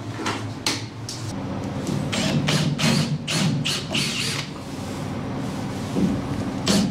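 Cordless Makita 18V drill running and boring a hole through a boat's bulkhead for about three seconds, with a few knocks before and after.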